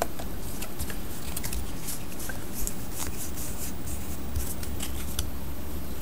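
Trading cards being handled, faint scattered rustles and small clicks as they are slid apart and flipped through.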